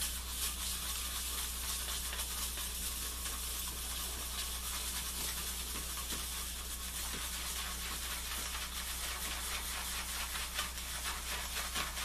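Bevel badger shaving brush swirled fast in a shaving bowl, whipping Pears' Transparent Soap and water into lather: a steady wet scratching and rubbing.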